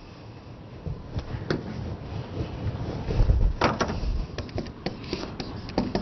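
Marker pen on a whiteboard: scattered short taps and strokes, with dull low thumps about three seconds in.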